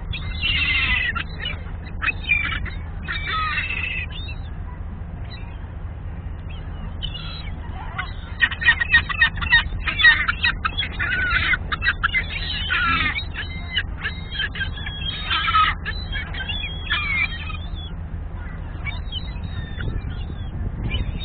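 A flock of gulls calling as they scramble for food, with scattered calls at first and then a busy run of loud, rapid calls from about eight seconds in until about sixteen. A steady low hum runs underneath.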